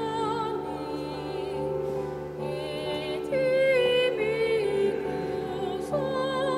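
A woman singing solo in a classical style, long held notes with vibrato, accompanied by sustained chords on an electronic keyboard.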